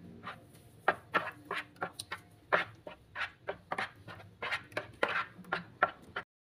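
A spoon stirring thick, wet ground-fish dough in a plastic bowl: irregular squelches and scrapes, about two or three a second. The sound cuts off abruptly near the end.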